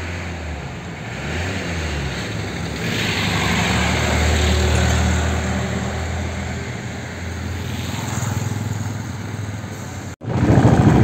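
Motor vehicle engine running with road noise while riding along. Its pitch dips and rises early, the sound swells in the middle, and it cuts out abruptly for a moment near the end.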